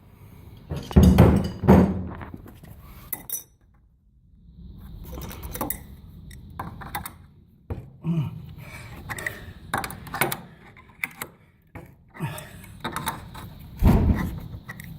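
Metal wrench clinking and knocking against a nut and bolt as it is fitted and turned, with a few heavier thunks, the loudest about a second in and near the end.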